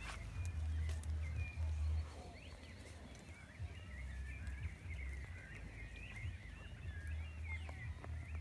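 Small birds chirping over and over, with low wind rumble buffeting the microphone, strongest in the first two seconds and again near the end.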